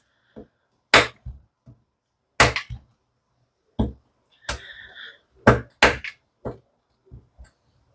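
A series of sharp snaps and knocks, about six loud ones spaced a second or so apart with fainter ticks between: a knife blade cutting through old, brittle plastic zip ties and striking a cutting board.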